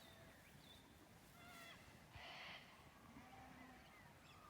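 Near silence outdoors, with faint distant bird calls and a brief soft rustle about two seconds in.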